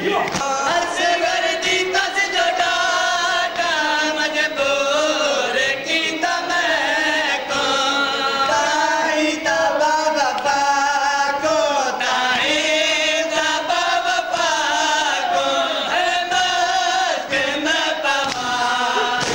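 Men reciting a Punjabi nauha, a Shia lament for Muharram, chanted together, with rhythmic chest-beating (matam) thuds beneath the voices.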